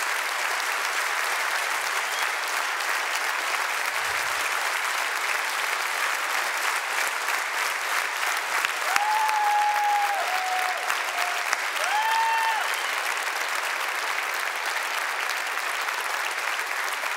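A theatre audience applauding steadily, with a few high held cheers from the crowd around the middle.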